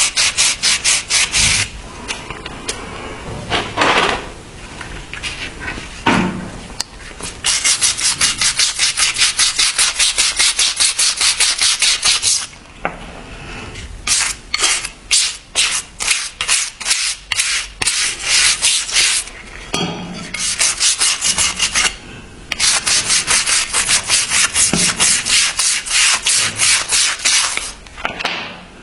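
A rusty steel knife blade being scrubbed by hand with an abrasive in quick back-and-forth strokes, about four or five a second. The strokes come in runs of several seconds, broken by short pauses.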